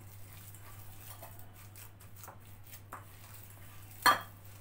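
Boiled potatoes being mashed and squeezed by hand in a steel bowl: a run of soft, faint squishing sounds, with one sharp clink of the steel bowl about four seconds in.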